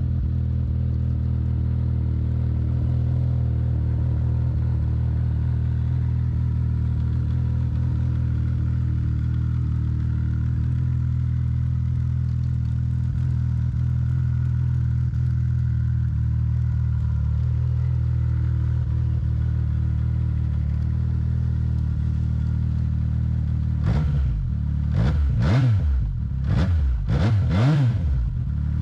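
Arctic Cat XF7000 snowmobile's four-stroke triple engine idling steadily while warming up just after a cold start, then revved in about four quick throttle blips near the end.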